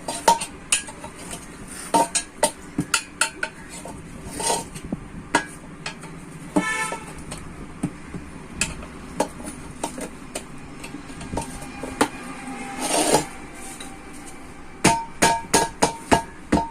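Metal tools clanking and knocking against a steel wheel rim while an auto-rickshaw tyre is fitted back over a new tube: irregular sharp metallic strikes, some in quick runs, with a longer scraping noise near the end.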